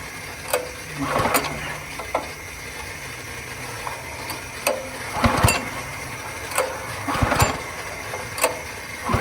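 Honda GX200 engine being pulled over by its recoil starter cord, several pulls one to two seconds apart, each a short whir with clicks. The engine turns over but never fires: a no-start.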